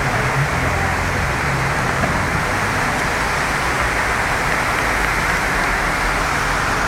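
Heavy rain and fast floodwater rushing along a street: a steady, even wash of water noise.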